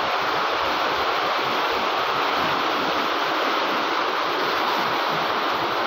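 Steady rushing of water in a flood, heavy rain falling with muddy floodwater running across the ground, an even, unbroken hiss.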